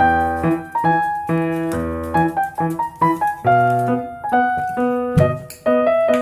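Background music led by piano playing a chord and melody line, with a low thump about five seconds in.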